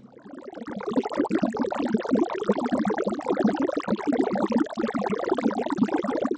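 Water sound effect: dense splashing and sloshing liquid that swells in over the first second, runs steadily and cuts off suddenly at the end.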